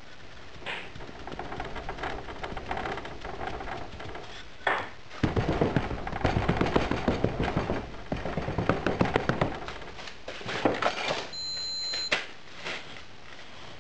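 Hands pressing and packing loose black moulding sand into a casting flask: a dense run of gritty crackling and rustling, loudest in the middle. Near the end, a brief high beep.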